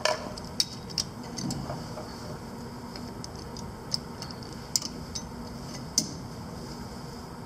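Sharp metallic clicks from a chuck key turning in a lathe's four-jaw chuck as the jaws are loosened and the part is handled. About five separate clicks come over a steady low hum, the loudest about six seconds in.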